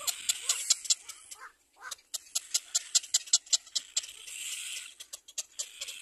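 Little black cormorant chicks begging at the nest: fast runs of short, sharp, high squeaks, about seven or eight a second, with a short break about a second and a half in.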